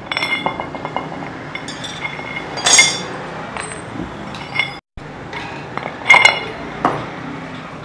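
Steel studs clinking against a cast metal fan hub as they are set by hand into its holes: a run of sharp metallic clinks with a short ring, two of them louder, about a third of the way in and again about three quarters in.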